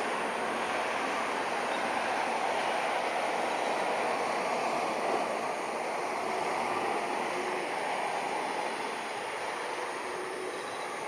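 Embraer 170 jet airliner climbing out after takeoff: the steady distant roar of its twin turbofan engines, easing slightly near the end.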